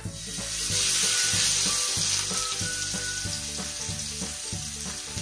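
Whole pomfret coated in spice paste sizzling in shallow oil on a dosa pan as it starts to fry. The sizzle jumps up as the fish goes down, is loudest about a second in, then settles to a steady frying hiss.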